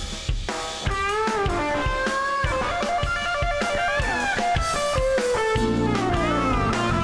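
Opening theme music: an electric guitar lead with notes that slide up and down, over a drum kit. A fuller, heavier bass and chord layer comes in about five and a half seconds in.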